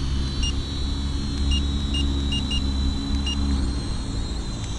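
FLYMAX 2 toy quadcopter (a DX-4 clone) hovering, its small motors giving a steady high whine. Six short beeps from the transmitter's trim buttons sound at uneven intervals as it is trimmed. A low rumble of breeze on the microphone runs under it.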